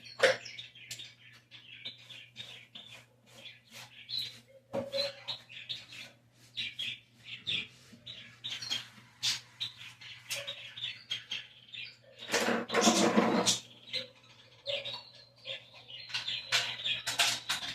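Small birds chirping and twittering in many short, quick calls, over a faint steady low hum. About twelve seconds in comes a louder noisy burst lasting about a second.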